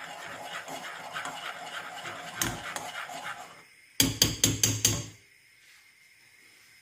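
A spoon stirring tea in a saucepan, scraping round the pan about four times a second. About four seconds in, five sharp taps as the spoon is knocked against the rim of the pan.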